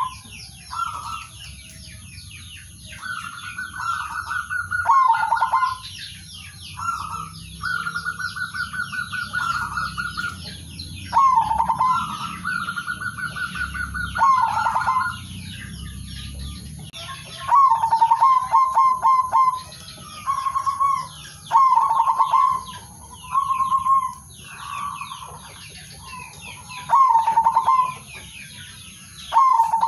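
Zebra dove calling: repeated phrases of rapid staccato coos, some held on a higher note before dropping into lower rolling notes. After about halfway the phrases turn short and clipped. Small birds chirp faintly throughout behind it.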